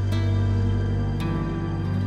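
Background music: slow, sustained chords, a new one struck about every second.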